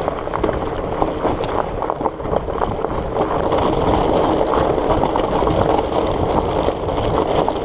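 Surly Moonlander fat bike's wide tyres rolling over the loose ballast stone of an old railway bed: a steady crunching rattle full of small clicks.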